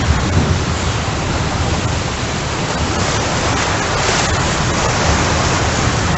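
Floodwater rushing along a flooded street in heavy rain: a loud, steady rush of water noise, a little brighter about four seconds in.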